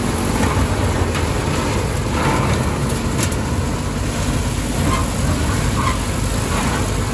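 Lamborghini R1.55 DT tractor running under load while driving a Taarup forage harvester that cuts grass and blows it up its spout into a trailer: a steady mechanical noise with a low rumble and a few faint clicks.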